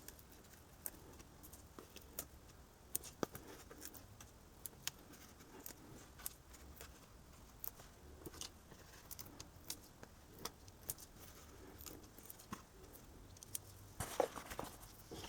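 Faint, scattered clicks and light rustling of paper craft materials being handled at a table, as foam adhesive dots are peeled and pressed onto a card tag; the handling gets busier near the end.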